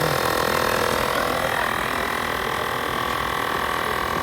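Automatic electric tyre inflator running steadily with a dense mechanical hum, pumping up a bicycle inner tube.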